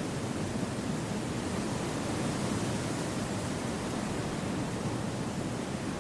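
Steady wind ambience: an even, low rushing with no gusts, rustles or other events.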